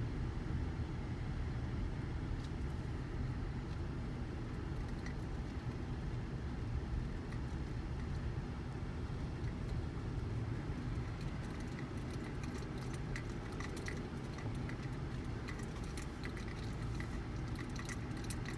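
Steady low rumble of blizzard wind buffeting the microphone. Scattered light ticks join it in the last third.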